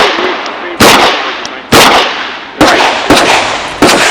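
Five revolver shots fired at an IDPA match stage, mostly about a second apart with two closer together, each with a short echoing tail; the revolver is a Chiappa Rhino in .38 Special.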